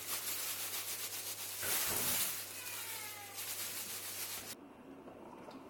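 Thin plastic bag crinkling and rustling as hands knead raw chicken breast and shio koji inside it. The crinkling is loudest about two seconds in and cuts off suddenly about four and a half seconds in.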